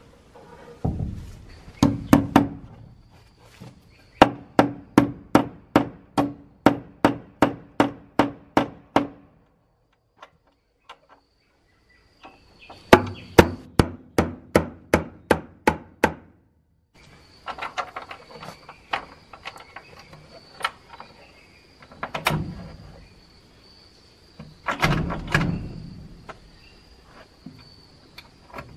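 Hammer driving nails into wooden boards: two runs of quick, even blows about two a second, then scattered knocks and a few heavier wooden thumps.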